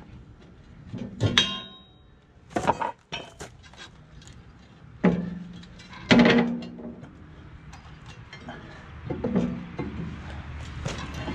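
Metal clanking and knocking as the steering-clutch cover plate of a John Deere 450B bulldozer is worked loose and slid out by hand. There are about five separate knocks several seconds apart, some with a short ring, and the loudest comes about six seconds in.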